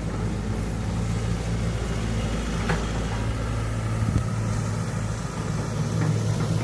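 Diesel engine of heavy farm or earthmoving machinery running at a steady, even speed, with a couple of light knocks about three and four seconds in.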